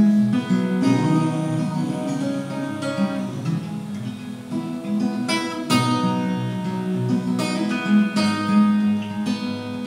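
Steel-string acoustic guitar played solo, hand-picked chords ringing on, with several sharper chord attacks along the way.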